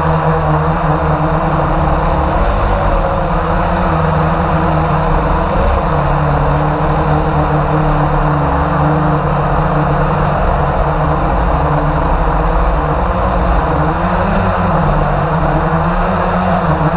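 Quadcopter drone's motors and propellers buzzing steadily, heard up close from the camera mounted on the drone, their pitch drifting slightly as it flies.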